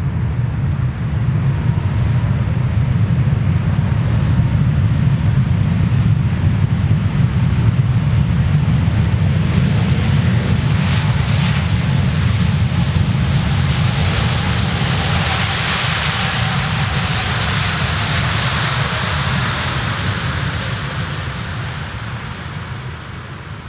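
Jet airliner passing low overhead on its landing approach: a loud, steady engine rumble with a hissing whine that swells to its loudest about two-thirds of the way through, then fades away, with a faint tone sliding down in pitch as it goes by.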